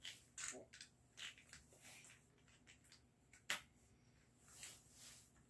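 Plastic Lego bricks being handled and pressed together: a scatter of faint clicks and rustles, with one sharper click about three and a half seconds in.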